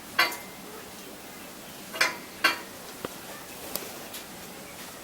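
Flue damper of a Plamen Maestral N stove being pushed partly closed: three short metallic scrapes and clinks within the first few seconds, followed by a couple of faint ticks.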